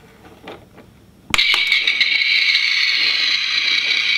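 A few light plastic taps, then a click about a second in and the Dickie Toys garbage truck's electronic sound effect switches on: a loud, steady, thin noise from the toy's small speaker, with its lights on.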